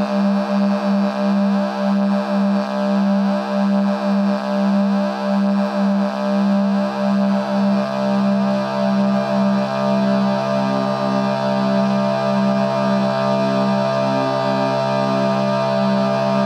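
Drone Lab analog drone synthesizer playing a sustained, buzzy drone of several steady pitches, throbbing about twice a second at first. About six seconds in a lower note joins and the throbbing smooths into a steady drone.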